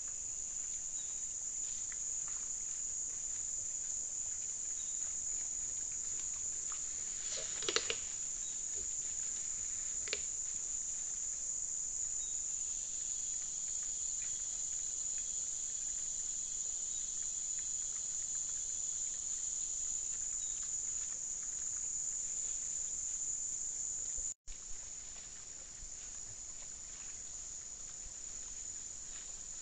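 Steady high-pitched drone of forest insects, with a couple of sharp clicks about eight and ten seconds in. The drone breaks off for an instant about three quarters through, then carries on a little quieter.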